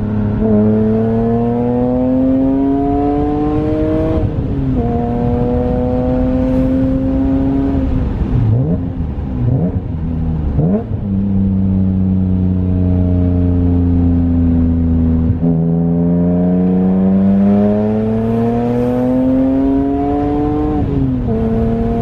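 BMW E46 M3's S54 inline-six pulling hard through the gears, its pitch climbing and then dropping at an upshift about 4 seconds in. Around the middle there are quick throttle blips, then the revs fall away steadily, then the engine climbs hard again to another shift near the end.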